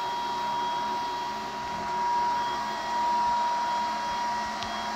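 Steady whirring noise with a constant high-pitched whine from a running solar inverter.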